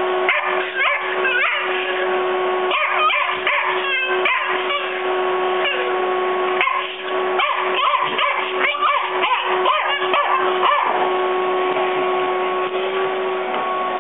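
Canister vacuum cleaner running with a steady motor whine while a puppy yips and whimpers again and again, biting at the suction hose's end, with short clicks mixed in.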